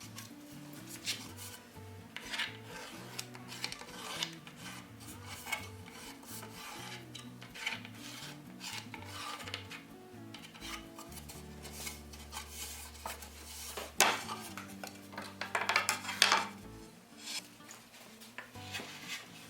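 A hand tool scraping wood in irregular strokes over background music. About two-thirds of the way through there is a sharp knock, followed by a quick, louder run of strokes.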